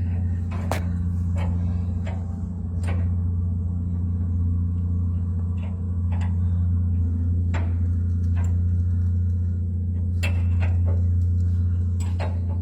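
Steady low machine hum, with scattered sharp clicks and knocks from handling metal parts.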